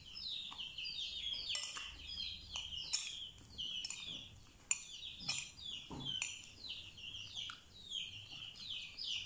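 A bird chirping over and over in a run of short, falling high notes, with the occasional clink and scrape of a metal spoon on a china plate; the sharpest clink comes about halfway through.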